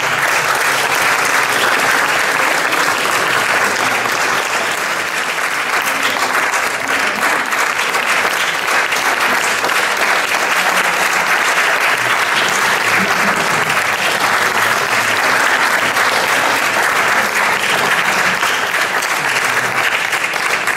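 An audience applauding steadily, a dense wash of many hands clapping.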